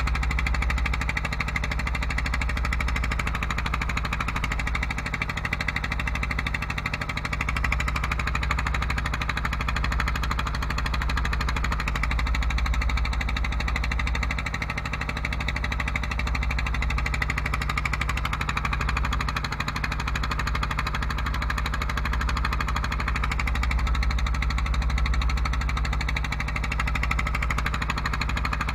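Engine of a small wooden fishing boat running steadily under way, a continuous low drone, with water washing along the hull.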